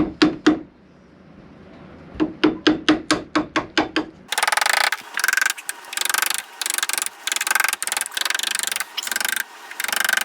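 Wood chisel cutting into a wooden door edge to recess it for a new doorknob latch: three sharp taps, then a quick run of about ten taps, then from about four seconds in a string of short scraping strokes as the chisel pares the wood.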